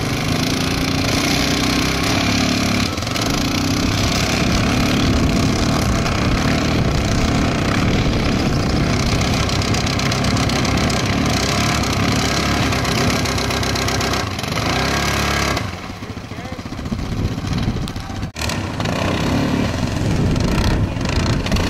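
A vehicle engine running steadily with loud, constant noise. It drops in level about sixteen seconds in, cuts out briefly, then comes back.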